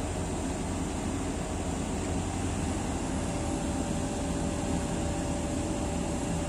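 Komatsu hydraulic excavator's diesel engine running steadily under load as the machine lifts a heavy genset hung by a chain from its bucket, with a thin steady whine that grows stronger about halfway through.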